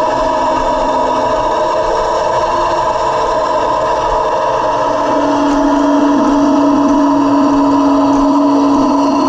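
1/16-scale Heng Long T-90 RC tank running, heard from a camera mounted on the tank itself: a steady mechanical whine and hum from its drive, with a deeper hum coming in and the sound getting louder about five seconds in, as the tank turns.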